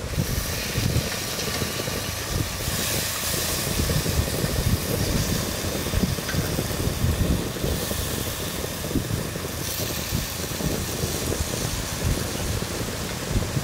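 Wind buffeting the microphone: a steady, uneven low rumble with a high hiss that swells and fades several times.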